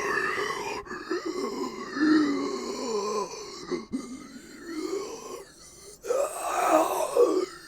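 A person's voice imitating a zombie: heavy, grunting breaths with voiced groans, in a few long breaths with short gaps between.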